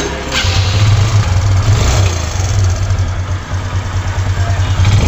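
Hero Ignitor's 125 cc single-cylinder engine idling steadily, with the cam chain rattle gone after its automatic tensioner was tightened.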